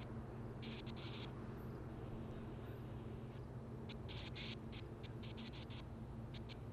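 Distant diesel locomotive idling with a steady low drone. Clusters of short, high chirps come over it near the start and again about two-thirds through.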